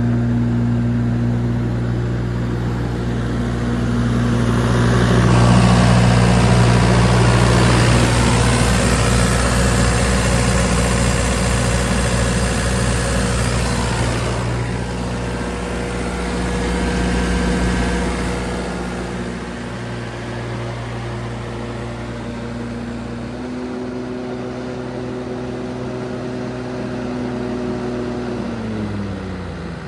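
MultiQuip DCA-70 diesel generator running steadily, louder and noisier for about ten seconds in the first half. Near the end its engine note falls in pitch as the engine slows down.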